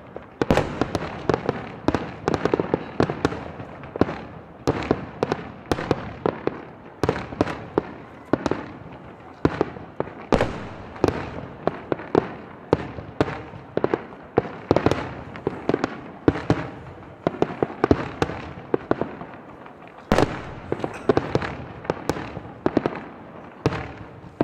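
Aerial fireworks going off in a rapid, unbroken barrage, several sharp bangs a second, each trailing off before the next.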